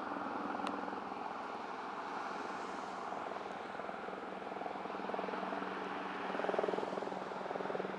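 Helicopter flying low overhead: a steady drone of rotor chop with a low engine tone, swelling a little near the end.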